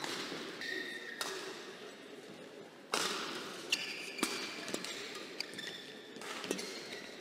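Badminton rally: a few sharp racket hits on a shuttlecock, with short high squeaks of shoes on the court mat between them.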